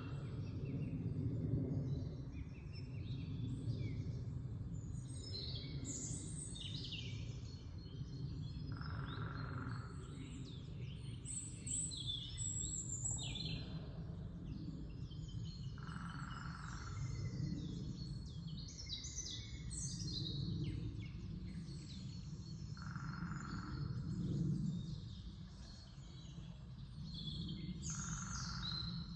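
Forest songbirds singing and chirping in early spring, many short overlapping high calls and trills, with a lower call repeating about every seven seconds. A steady low rumble sits beneath.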